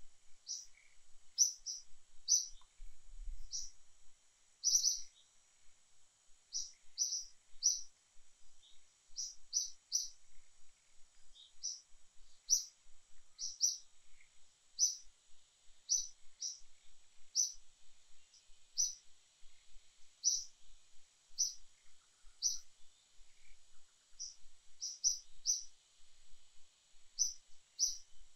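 A bird calling repeatedly in short, high, chirping notes, roughly one or two a second at an uneven pace, over a faint steady high-pitched hiss.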